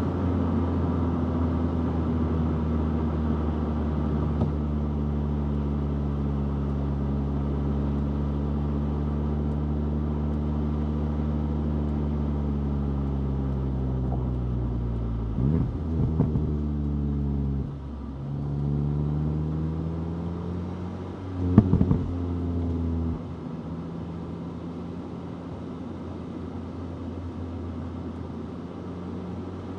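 Stock VW Golf GTI 8.5's turbocharged 2.0-litre four-cylinder engine running while driving. Its note sinks slowly for the first half as the revs fall. Midway the pitch dips and rises twice with a couple of short knocks, then it settles to a quieter, lower hum near the end.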